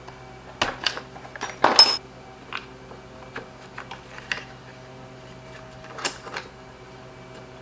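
Small plastic and metal parts and hand tools being handled on a workbench while swapping a primer bulb: scattered light clicks and knocks, with a brief clatter near two seconds in and another near six seconds in, over a faint steady hum.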